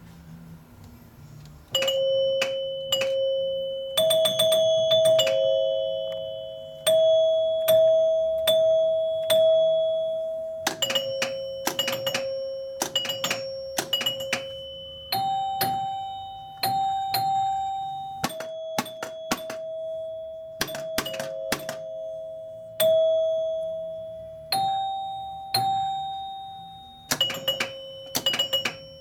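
A 1978 Gottlieb Sinbad pinball machine's scoring chimes ringing, struck again and again on three different pitches, sometimes in quick runs, each note dying away over a second or two, with sharp clicks from the machine's mechanisms. The chimes start about two seconds in.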